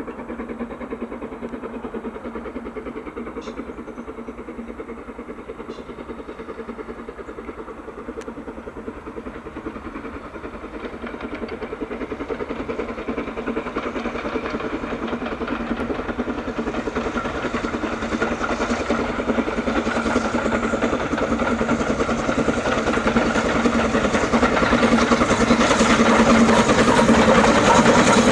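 BR Standard Class 9F 2-10-0 steam locomotive working hard uphill, its rapid exhaust beats growing steadily louder as it approaches and draws level.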